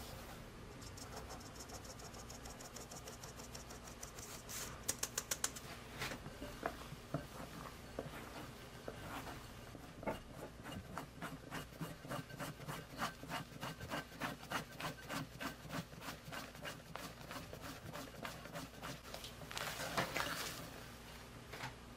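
Flour being sifted through a fine mesh sieve into a glass bowl of whipped egg batter, the sieve rattling softly and then tapped sharply a few times about five seconds in. After that, a rubber spatula folds the batter, scraping and squelching against the glass bowl at about three strokes a second, with one louder rough scrape near the end.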